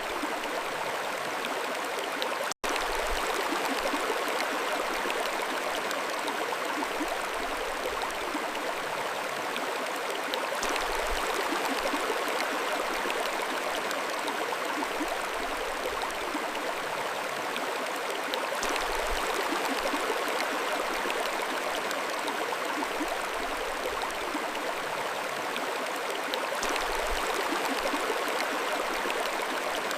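Mountain stream flowing steadily, a dense, even rush of water that briefly cuts out for an instant about two and a half seconds in.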